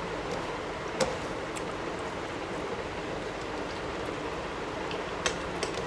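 Soft eating sounds of two people eating rice and fish curry by hand from plates, with a few sharp clicks about a second in and twice near the end, over a steady hiss.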